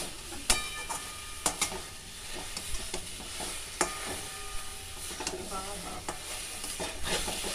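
A flat metal spatula stirring boiled eggs in a metal wok of frying masala: scraping against the pan over a steady sizzle. There are a few sharp, ringing clinks where the spatula strikes the wok, about half a second, a second and a half and nearly four seconds in.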